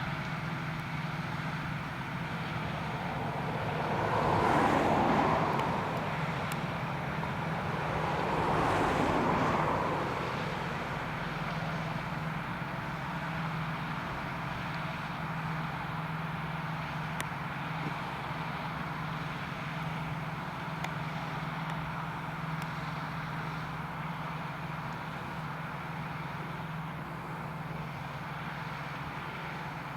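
Farm tractors running steadily in a field, with two louder swells of noise about four and nine seconds in as machinery passes close.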